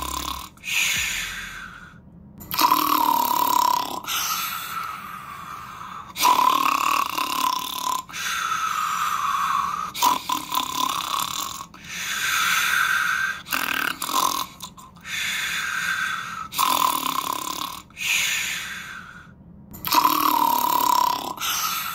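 A person snoring, one long snore after another about every two seconds.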